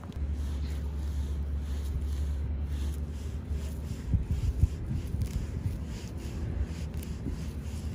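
Gloved hand pulling and scraping weeds out of dry soil: scratchy rustling of roots, dead stems and earth, over a low rumble on the microphone, with a few dull thumps about four seconds in.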